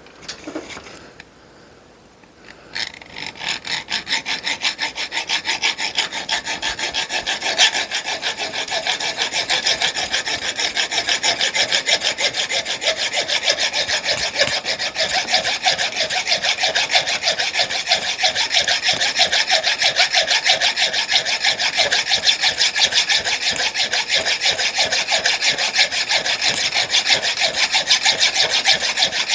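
Hacksaw with a fresh blade sawing back and forth across a broken steel stud seized in the turret ring of a Brunswick A2 pinsetter, cutting a slot so the stud can be unscrewed. The steady strokes start a couple of seconds in and keep an even rhythm throughout.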